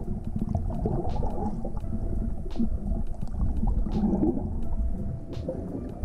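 Water gurgling and rumbling around a submerged camera's microphone, heard muffled and low, with bubbling.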